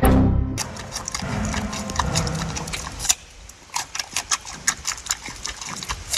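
An irregular run of sharp clicks and taps on a hard surface, several a second, starting about half a second in after a loud thud.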